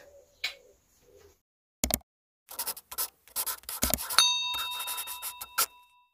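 Edited-in end-screen sound effects: a single sharp click, then a quick clatter of clicks and knocks, then a bell-like ding about four seconds in that rings on for nearly two seconds and fades.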